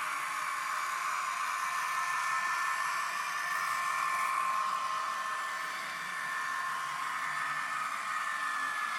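A Dapol N gauge Voyager model's DCC sound decoder plays diesel-unit running sound through its tiny speaker. It is a steady whirring hiss with two held tones, the higher one sliding slightly lower near the end.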